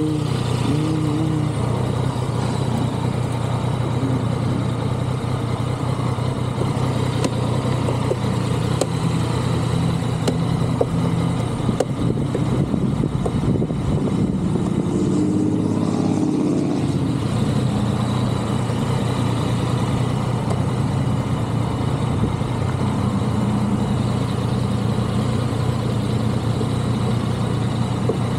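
Vehicle engine running steadily while being ridden, holding an even speed with little change in pitch.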